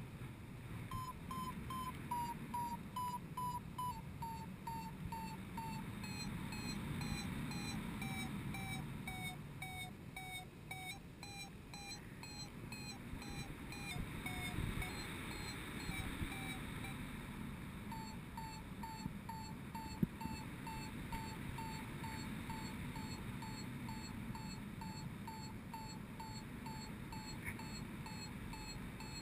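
Paragliding variometer beeping in quick short beeps, the signal that the glider is climbing in rising air; the pitch sinks through the first half as the climb weakens, the beeping stops for a few seconds, then resumes at a steady pitch. Wind rushes on the microphone underneath.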